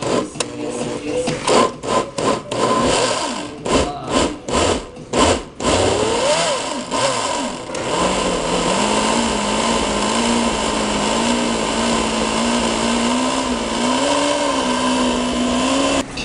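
Countertop blender puréeing hot chili sauce: a string of short pulses for about the first five seconds, then the motor runs continuously, its hum wavering slightly with the load.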